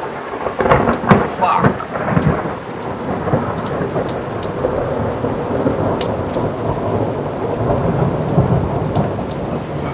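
Loud thunder from a storm overhead: sharp crackling peals in the first couple of seconds give way to a long continuous rumble, with rain falling.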